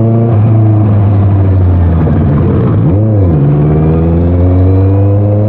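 Honda CBR650R's inline-four engine running through an aftermarket Orion exhaust as the bike accelerates. The pitch drops sharply at a gear change just after the start, then climbs. About three seconds in it briefly rises and falls before climbing again.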